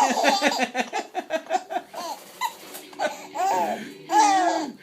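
A baby laughing: a quick run of short, rapid laughs for about two seconds, then two longer laughs that rise and fall in pitch near the end.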